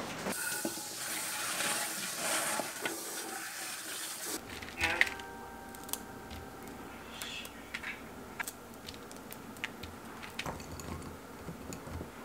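A steady hiss for about four seconds, then a knock. After it come scattered crisp crackles and snaps as a sheet of dehydrated nut-and-seed granola is broken apart by hand on a dehydrator tray.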